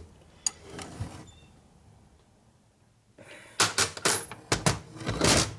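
Steel box-end wrenches clicking and clinking against crankcase stud nuts as they are fitted and tightened by hand. A couple of light clicks come first, then from about halfway a quick run of loud metal clinks.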